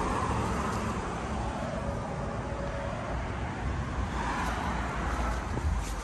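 Steady outdoor background rumble of road traffic, swelling a little near the start and again about four and a half seconds in.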